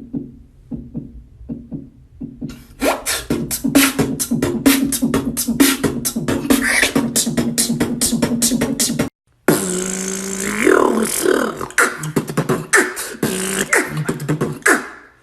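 Human beatboxing: a fast run of vocal kick, snare and click sounds over a held hummed bass tone, cutting out briefly about nine seconds in. It then resumes with sliding vocal pitch sweeps among the drum sounds.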